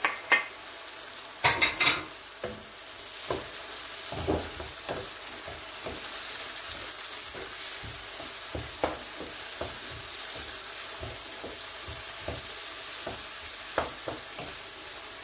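Diced tomatoes sizzling in hot oil in a frying pan with onions and green peppers as a wooden spoon stirs them. The spoon scrapes and knocks against the pan now and then, most strongly in the first two seconds as the tomatoes are scraped in.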